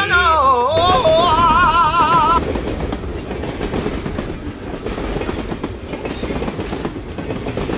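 A train running along the rails: a steady rumble with a fast clickety-clack of wheels over rail joints. A warbling tune dies away in the first two seconds or so.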